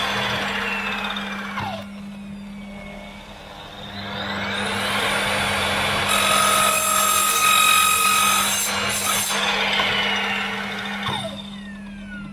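Evolution sliding mitre saw running and cutting into a timber batten, notching slots with shallow passes rather than cutting through. It runs in two bursts. The first winds down with a falling whine about two seconds in. The second starts about four seconds in, holds a steady whine and winds down near the end.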